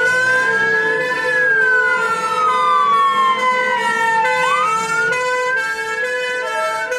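Fire engine sirens: a wail that rises slowly and falls slowly, twice, over a two-tone hi-lo siren that alternates about twice a second.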